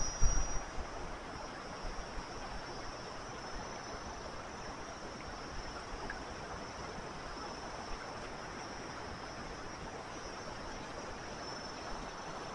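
Steady rush of fast-flowing water and breaking surf at a river mouth, with insects buzzing high and steady over it. A few low thumps in the first second.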